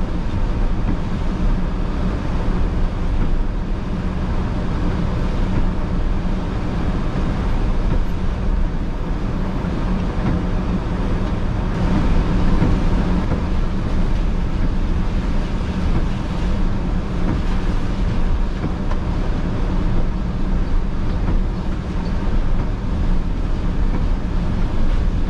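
Steady road noise heard from inside a moving car: the engine's low hum and the tyres hissing on wet pavement.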